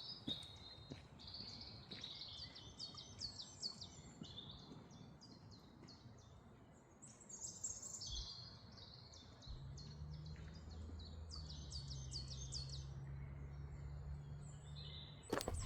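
Faint songbirds singing, a busy run of short high chirps and trills. A low steady drone comes in about two-thirds of the way through, and footsteps start right at the end.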